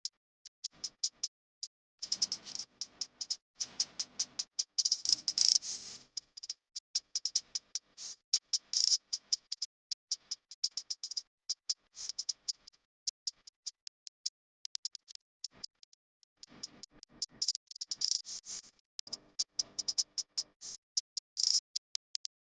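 Coloured pencil scratching on paper in quick, short back-and-forth strokes, as in shading. The strokes come thickest for a few seconds soon after the start and again in the second half, with sparser strokes between.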